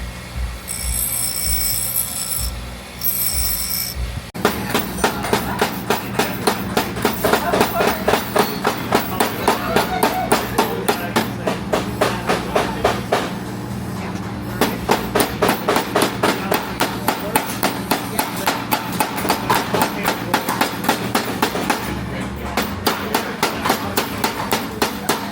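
Background music with a fast, steady percussive beat that starts abruptly about four seconds in and pauses briefly twice. Before it there is a steady sound with high whistling tones.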